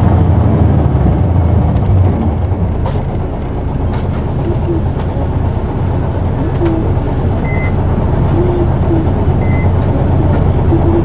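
Isuzu Erga city bus's diesel engine heard from inside the cabin, running steadily at low engine speed. In the second half, short electronic beeps repeat about every two seconds.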